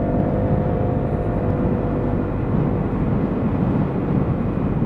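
Lexmoto Aura 125 scooter's engine running while cruising at a steady speed, mixed with steady wind rush; a faint whine fades out over the first two seconds or so.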